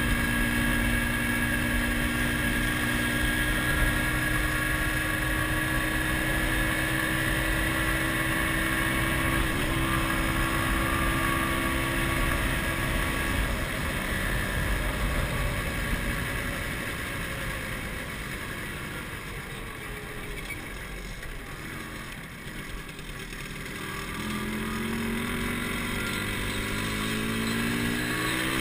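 MZ ETS 250 Trophy Sport's single-cylinder two-stroke engine running steadily under way, heard from the rider's seat. About two-thirds through it drops off and goes quieter as the throttle is eased, then picks up and runs louder again near the end.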